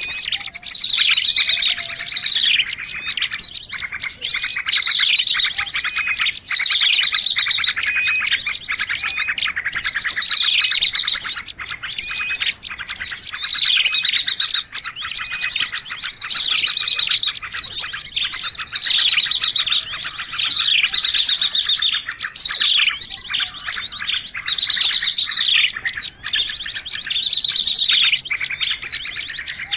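Small songbirds calling nonstop in a bird-luring recording. Rapid high trills and falling chirps repeat in similar phrases every two to three seconds.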